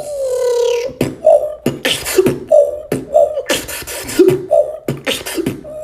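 Vocal beatboxing: a held, falling pitched hum, then from about a second in a rhythmic beat of sharp kick- and snare-like mouth hits mixed with short pitched vocal blips.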